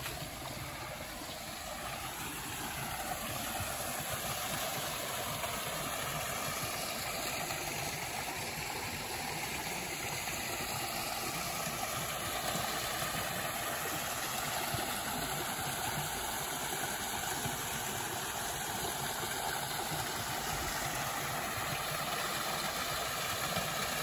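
Small waterfall splashing into a pond: a steady rush of falling water that grows louder over the first few seconds.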